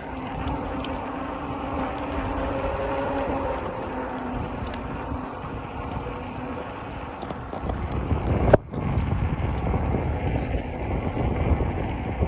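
Bicycle ride with wind rumbling on the microphone and rolling noise, and a single sharp click or knock about eight and a half seconds in.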